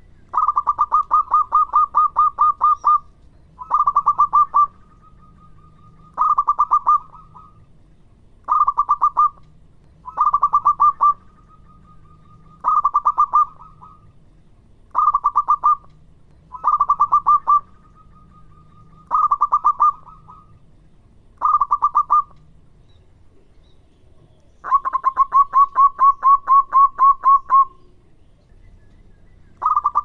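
Zebra dove (perkutut) singing its staccato cooing song: short bursts of rapid notes about every two seconds, with longer runs of notes at the start and again near the end.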